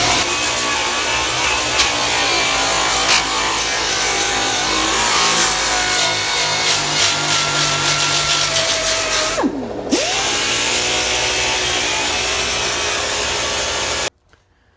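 Air-powered tool running hard against the car's sheet-metal quarter panel, stripping off undercoating with a rough, gritty scrubbing. About nine and a half seconds in it lets off briefly, its pitch dropping and then climbing again as it spins back up, and it cuts off abruptly near the end.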